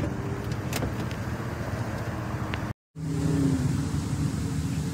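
Steady low hum of a running engine or motor. It drops out completely for a moment nearly three seconds in, then returns with a few steady tones.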